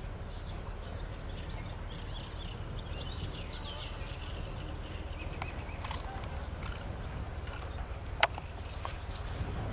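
Small birds chirping in short high calls, scattered through, busiest a few seconds in, over a steady low rumble, with one sharp click near the end.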